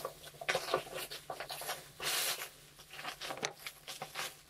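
Clear plastic packaging wrap being crumpled and pulled off by hand: a run of crinkles and crackles, with one louder, longer rustle about two seconds in.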